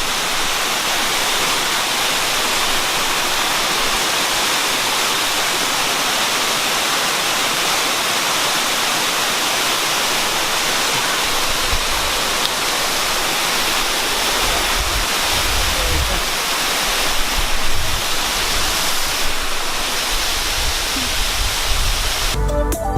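Waterfall pouring steadily, a loud, even rush of falling water close to the microphone, with low rumbles coming and going in the second half. Electronic music starts about a second before the end.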